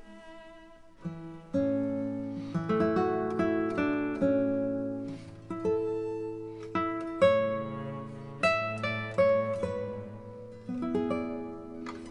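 Background music played on acoustic guitar: plucked notes and chords that ring and fade, starting about a second and a half in.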